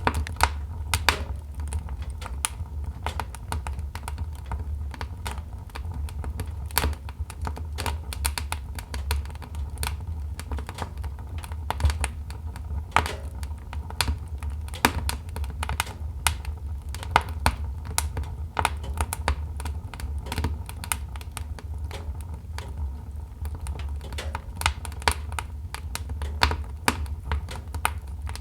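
Wood fire burning in a fireplace, logs crackling with many sharp, irregular pops over a steady low rumble of the flames.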